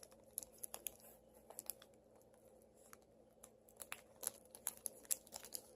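Toy packaging being handled and opened by hand: faint, scattered crinkles and light clicks, thinning out in the middle and picking up again in the last two seconds.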